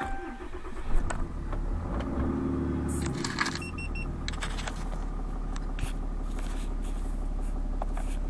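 Dodge Ram pickup's engine started with the key, keys jangling in the ignition: it cranks for a few seconds, then catches and settles into a steady idle, with a few short dash chime beeps as it starts.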